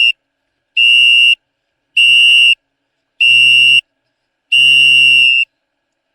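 A high-pitched electronic signal beeping in repeated even blasts, about one every second and a quarter, the last one held longer, like a countdown signal.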